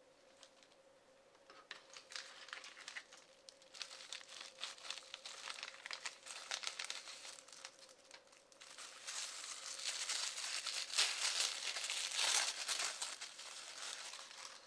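Thin wrapping crinkling and rustling as hands unwrap a small plastic part, sparse at first and then dense and loudest over the last few seconds.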